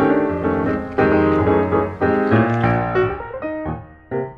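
Background piano music, a steady run of struck notes and chords that dips briefly near the end before the next phrase starts.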